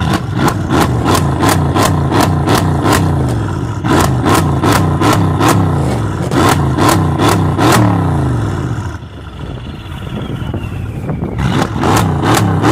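Mercedes-AMG V8 engine being revved over and over in quick blips, its pitch climbing and dropping a few times a second. About nine seconds in it eases off and a high whine falls away in pitch, then the blipping resumes.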